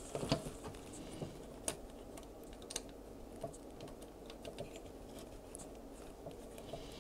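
Faint, scattered small clicks and ticks of fingers handling a circuit board and its components, a few sharper ones in the first two seconds.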